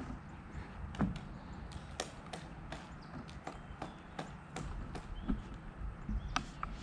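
Pileated woodpecker chiseling into wood, making sharp, irregular knocks about two a second as it chips material out.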